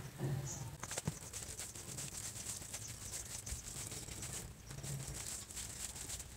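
Faint, soft squishing and rustling of a bare hand mixing and mashing oiled shredded cabbage bharta on a plate, with a few light clicks about a second in.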